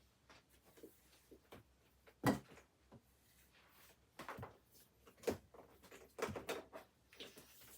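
Scattered knocks and clicks of things being handled, the loudest about two, five and six seconds in.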